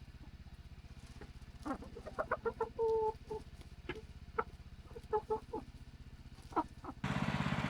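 Backyard chickens clucking in short calls, with one longer held call about three seconds in. Near the end a louder steady motor hum cuts in.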